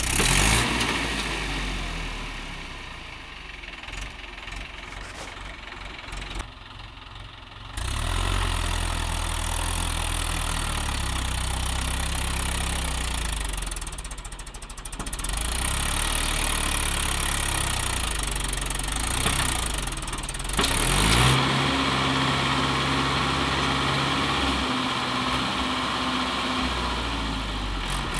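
Mahindra 575 XP tractor's four-cylinder diesel engine running hard under load as the tractor climbs a sandy slope. About two-thirds of the way through it revs up and holds at a higher, steady pitch.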